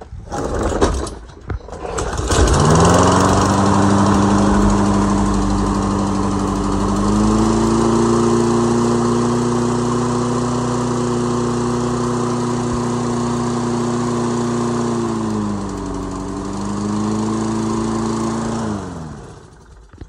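Toro Recycler 22 push mower's single-cylinder engine pull-started: a yank of the recoil cord, and the engine catches about two seconds in and runs steadily. Its pitch steps up a few seconds later and dips briefly near the end, before it stops and winds down. It now starts and runs on a manual choke cable fitted in place of the failed auto choke.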